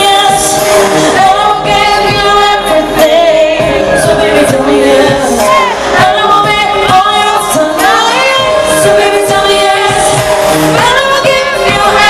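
Live pop song played through an arena sound system: a woman singing into a microphone over the backing music.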